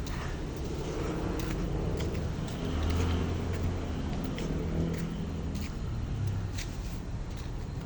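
A chainsaw's two-stroke engine running at some distance, a steady drone whose pitch drifts up and down, with a few faint clicks over it.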